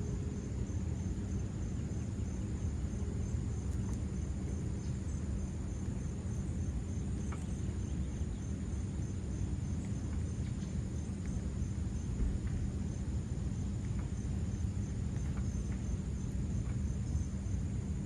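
A cricket chirping in a high, even, rapid pulse without pause, over a steady low rumble.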